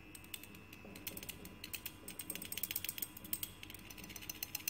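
Rapid, irregular mechanical clicking, sparse at first and growing dense about a second and a half in.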